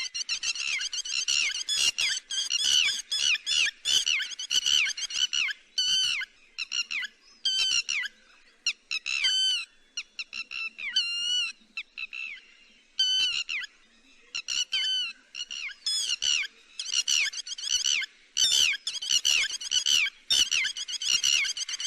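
Lapwing calls in rapid, overlapping series of sharp, high, falling notes, as used in a lure recording for netting lapwings. The calls come thick and fast, thin out to scattered single calls midway, then crowd together again.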